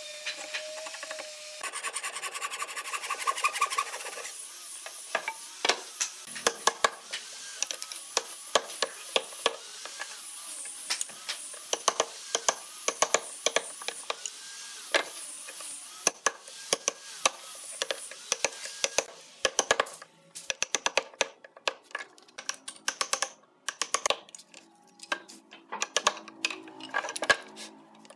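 Hand chisel cutting into hardwood: a run of irregular sharp clicks and cracks as the blade bites and chips break away.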